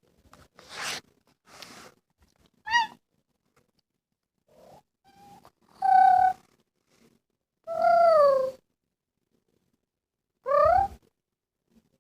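Kitten meowing four times, a few seconds apart: a short call, a steady one, one that falls in pitch and a last that rises.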